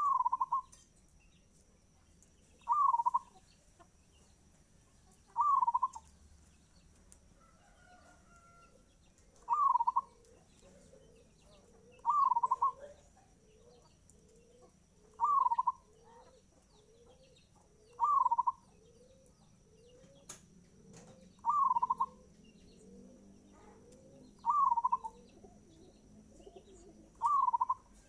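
Caged zebra dove (perkutut) singing in a fast tempo: a loud cooing phrase repeated ten times, roughly every three seconds. Through the middle, a fainter run of short rising notes comes about twice a second behind it.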